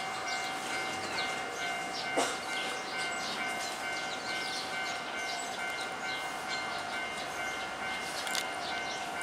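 A Hiroshima Electric Railway tram approaches on the Miyajima Line under a steady ringing warning tone, with light rail clicks and one sharp clack about two seconds in.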